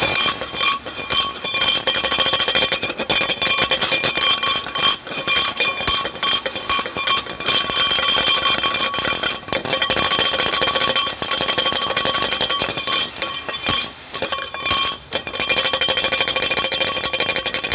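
Rear shock absorber on a Toyota SW4 being shaken by hand, clanking and rattling with a metallic ringing in quick repeated knocks. This is the rear-suspension knock of a broken shock absorber, the noise the customer had taken for keys rattling.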